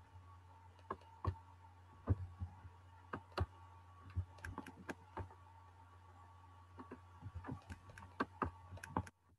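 Computer mouse clicking at irregular intervals, a dozen or so sharp clicks, over a steady low electrical hum; the sound cuts off abruptly near the end.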